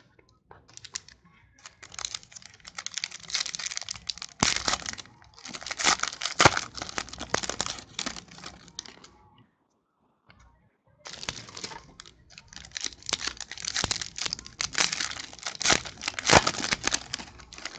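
Foil football-card pack wrappers crinkling and tearing as packs are opened by hand, in two long stretches with a short pause between, and a few sharper snaps.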